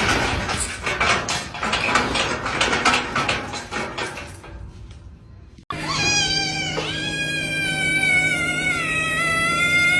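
A dense scratchy, clattering noise for the first half, then, after an abrupt cut, a domestic cat gives one long drawn-out yowl that wavers in pitch.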